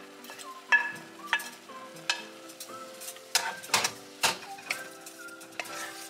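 Wooden spoon scraping and tapping against a plate and a stainless steel saucepan while stirring chopped herbs and shallot, with a dozen or so sharp knocks, some ringing briefly off the metal pan. Soft background music plays under it.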